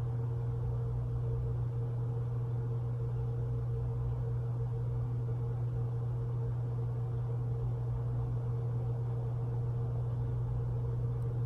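A steady low hum with a fainter, higher steady tone above it, unchanging throughout.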